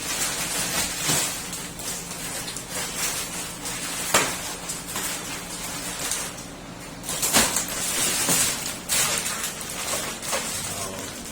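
Packing material being handled: rustling and scraping, with a few sharp knocks.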